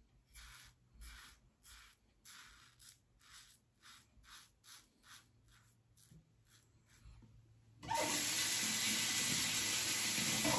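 Safety razor (Edwin Jagger 3ONE6 with a Rapira blade) scraping through lathered stubble in short strokes, about two or three a second. About eight seconds in, a tap is turned on and water runs steadily into the sink.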